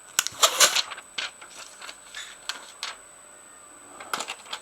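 Crackling and clicking of protective plastic backing being peeled off a new iPhone XR replacement LCD screen. The crackle comes in a dense run in the first second, then as scattered clicks, and again in a short run near the end.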